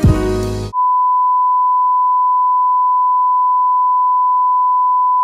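Background music with a low thud, cut off less than a second in, then a loud, steady single-pitched electronic beep held unchanged for nearly five seconds, like a censor bleep or test tone.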